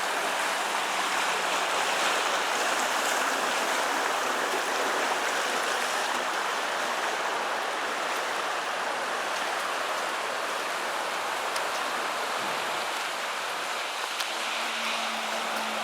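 Flood-swollen creek rushing hard under and against a bridge: a steady, even roar of fast-running water.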